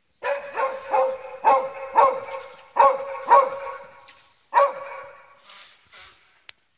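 A dog barking repeatedly: about eight loud barks in quick succession, then two fainter ones.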